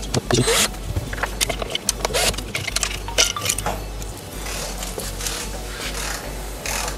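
Small clicks and clatter of screws and hard plastic bumper parts being handled as the front bumper bracket of an electric unicycle is unscrewed and taken off.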